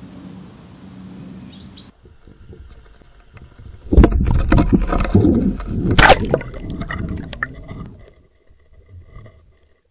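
Steady outdoor background with a bird chirp. Then, about four seconds in, loud muffled water noise starts: rumbling and gurgling with knocks and clicks, as from a camera housing going under water. It fades out about eight seconds in.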